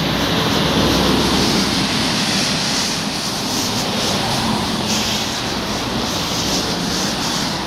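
Traffic on a wet road: a steady hiss of tyres on wet asphalt with a low engine rumble, loudest about a second in as a vehicle passes.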